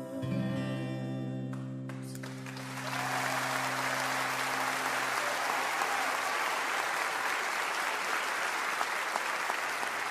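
A song ends on a held chord, and about two and a half seconds in an audience breaks into steady applause that carries on to the end.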